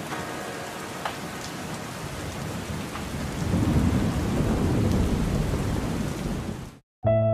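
Steady rain falling, with a low rumble of thunder that builds from about three seconds in and grows louder. The sound cuts off abruptly near the end, and piano music begins.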